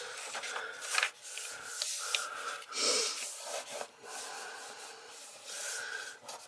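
Paper rustling as the pages of a printed instruction booklet are turned and smoothed flat by hand, with a louder rustle about three seconds in.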